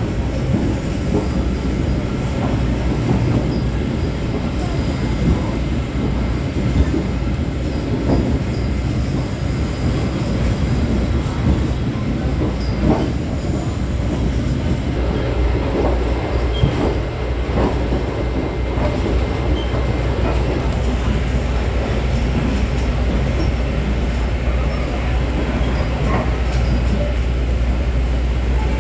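Onboard sound of a diesel VLT railcar under way: a steady low rumble of engine and wheels on rail, with a few sharp clicks from the track.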